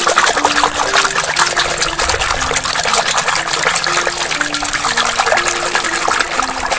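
Hand sloshing and scrubbing a small plastic toy in a basin of soapy, foamy water, a continuous crackly splashing. A simple tune of single held notes plays softly underneath.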